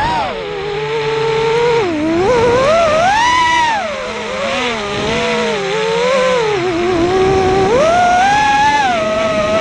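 Eachine Wizard X220 racing quadcopter's brushless motors and propellers whining, the pitch gliding up and down with the throttle, highest about three seconds in and again near the end.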